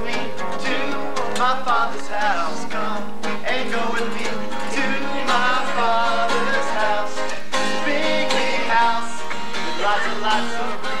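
Acoustic guitar played with singing, a song performed live.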